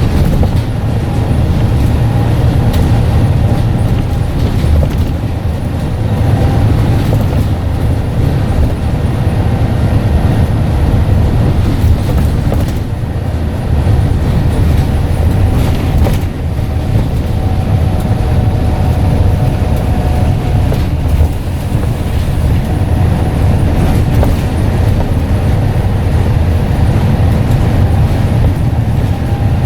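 Scania N94UD double-decker bus running under way, a steady deep rumble from the engine and drivetrain with a faint whine above it.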